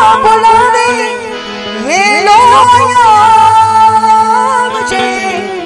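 A woman singing long, wavering held notes in Gujarati devotional folk style, sliding up into a long held note about two seconds in, over a steady harmonium drone.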